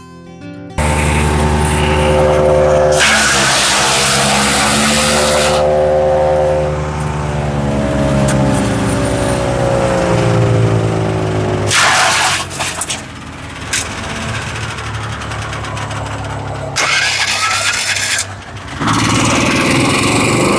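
Gasoline engine of a MechMaxx 6-inch wood chipper running loud, its pitch rising and falling under changing load, with several bursts of noisy chipping as branches are fed through.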